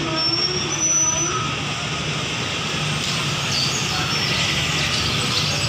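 City street noise: steady traffic with distant voices, and short, faint, high bird chirps over it.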